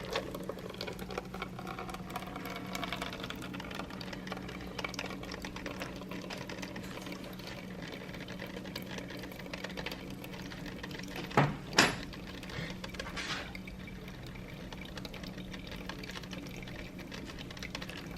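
Hotel CV1 single-cup coffee maker brewing: a steady electric hum with water trickling and dripping into the cup. Two short sharp sounds about eleven and a half seconds in, and a fainter one a second later.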